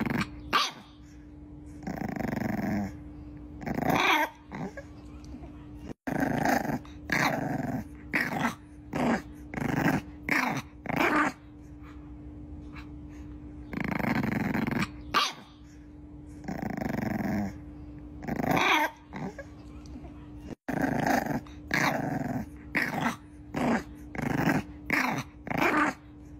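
A bulldog puppy growling in repeated short bursts, some in quick runs and some single, with a steady faint hum underneath.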